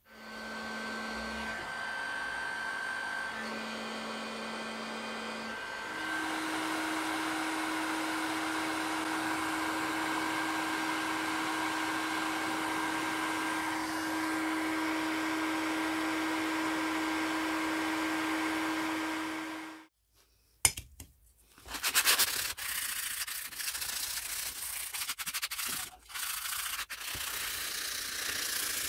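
Steady blowing hiss with a hum from a heating tool working on a brass tube joint of an antique curling iron for soldering; the hum steps up in pitch about six seconds in, and the sound stops suddenly about two-thirds of the way through. After a short gap, irregular scraping and rubbing on metal.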